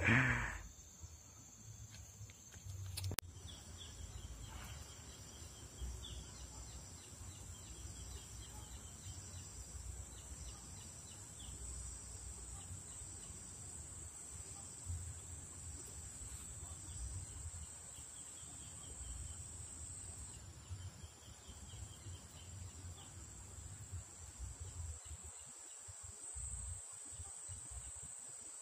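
Steady high-pitched insect trill holding on one pitch, over a low rumble on the microphone, with a single click about three seconds in.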